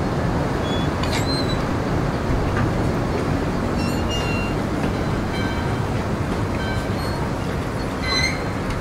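A steady rushing noise with no beat or melody, dotted with a few faint, short, high chirps.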